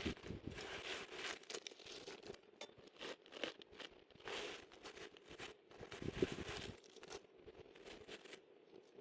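Dry leaf litter and charcoal rustling and crunching as a hand rakes through them, with the crackle of a small campfire burning down bark and leaves. Irregular crisp clicks and crunches throughout, with a somewhat louder crunch about six seconds in.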